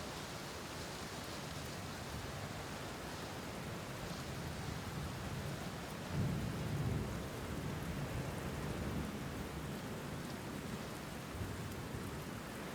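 Steady rain falling, with a low rumble of thunder swelling about six seconds in.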